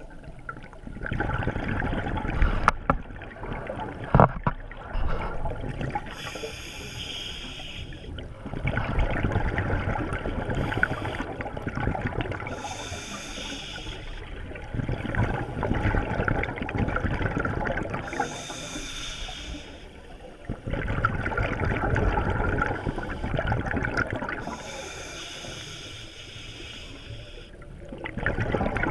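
Scuba diver breathing through a regulator underwater: a short hissing inhale, then a longer, louder rush of exhaled bubbles, repeating about every six seconds. Two sharp clicks a few seconds in.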